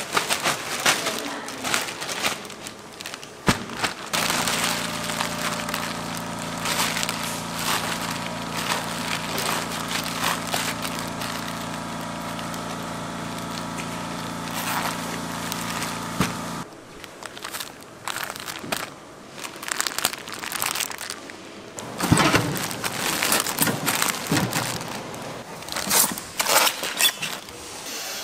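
Clear plastic bag of kimchi crinkling and rustling as gloved hands twist and knot it shut, with packing rustles and light knocks. A steady mechanical hum starts about four seconds in and cuts off suddenly a little past halfway.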